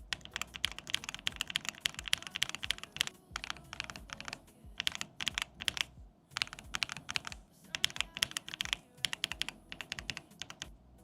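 Typing on a Keychron mechanical keyboard with tactile switches: runs of quick keystroke clicks broken by short pauses.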